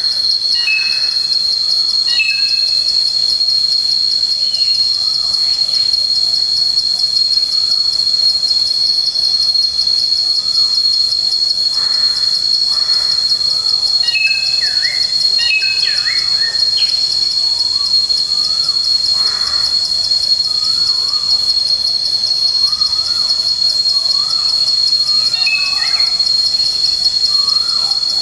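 Forest insects keep up a continuous high-pitched, finely pulsing trill. Short bird chirps and whistled calls break through it at intervals.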